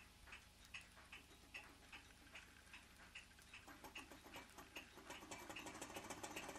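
L-9 thermoacoustic engine toy running after a nudge start: faint, regular ticking about two or three times a second from its single piston and wire-linked flywheel. From about halfway it is joined by faster clicking that grows louder.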